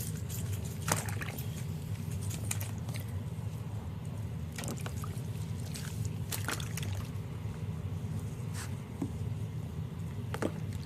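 Bath water sloshing and dripping in a small baby tub as a silicone baby doll is washed and moved, with several light splashes, over a steady low hum.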